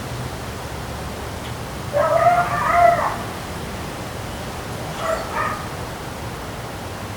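An animal's whining cry lasting about a second, about two seconds in, then two short cries about five seconds in, over the steady rush of wind and rain.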